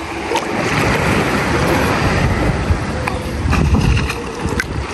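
Wind buffeting the microphone in uneven gusts, over small sea waves lapping in shallow water.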